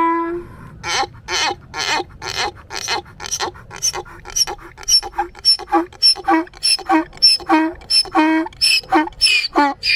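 A monkey calling in a rapid series of short, sharp cries, about three a second, beginning about a second in and carrying on steadily, the later cries each ending in a brief held note.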